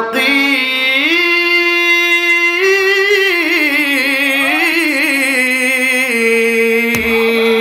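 A man singing a long drawn-out melodic phrase, the held notes wavering. The pitch climbs about a second in, wanders, and settles back to a lower sustained note near the end.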